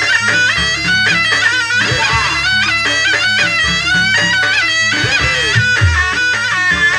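Live Javanese jaranan music: a shrill reed shawm (slompret) plays a wavering, ornamented melody over hand-drum strokes and a steady gong drone.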